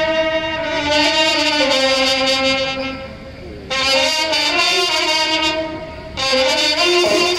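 Brass band with trumpets and saxophones playing long, held chords. The chord fades away twice and comes back in loudly each time.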